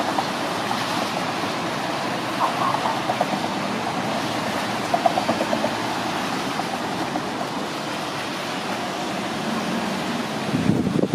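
Steady roar of city street traffic, with a louder low rumble building near the end.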